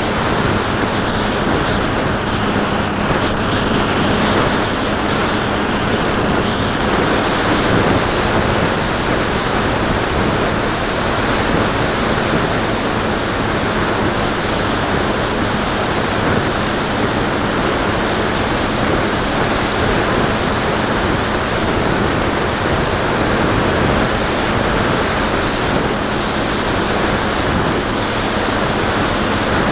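Loud, steady wind rush over an onboard camera on a Bixler 2 foam FPV plane in flight, with the faint steady hum of its brushless motor (Turnigy 1400kv) and 8x5 propeller under it.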